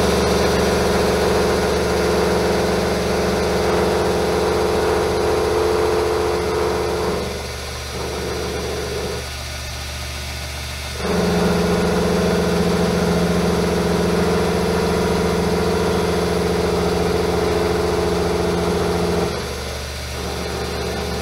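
Metal lathe running steadily while a tool bit turns down a hot-rolled steel crankshaft's main bearing journal. The louder cutting sound, with steady tones over the hum, comes in two long passes of about seven and eight seconds. Between the passes there is a brief lull and a short burst, and only the lathe's steady hum is left.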